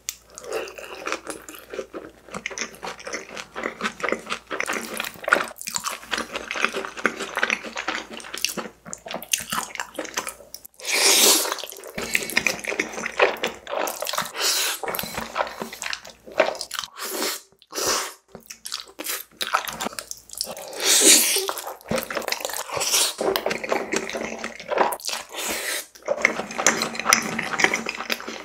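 Close-miked mukbang eating sounds: biting into sauced fried chicken and wet chewing. Two loud slurps of black bean noodles come about eleven and twenty-one seconds in.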